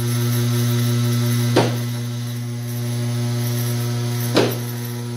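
Two-post car lift's electric hydraulic pump running with a steady hum as it raises the car body clear of the engine and rear subframe. Two sharp clicks come a little under three seconds apart.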